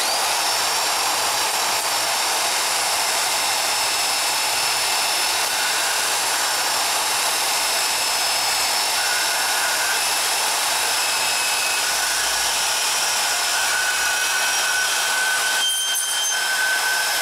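Portaband portable bandsaw cutting thin-wall 304 stainless steel tube, running steadily with a high squeal from the blade in the metal. The squeal grows stronger in the second half.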